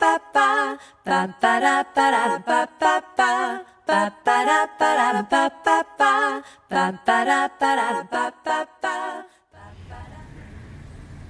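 Background music of a cappella voices singing short, choppy phrases. It stops about nine and a half seconds in, and a quieter steady low hum follows.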